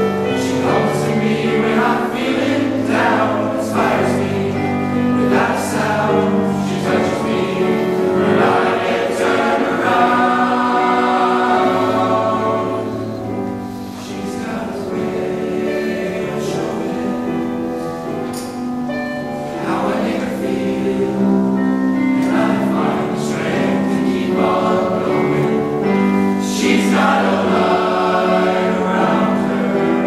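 Boys' choir singing together, with young unbroken voices and some deeper male voices; it eases off briefly about halfway through before swelling again.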